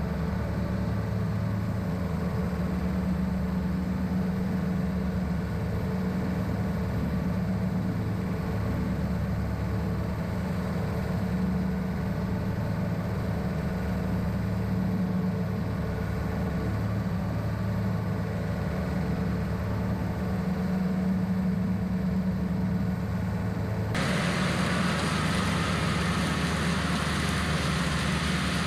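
John Deere 110 tractor-loader-backhoe's diesel engine running steadily while it drives the King Kutter finish mower through the PTO. Near the end a harsher rushing sound suddenly joins the engine.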